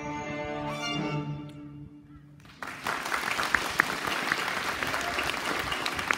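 A children's string ensemble of violins and cello holds its final notes, which fade out about two seconds in. Then an audience breaks into steady applause, with a few sharp single claps standing out.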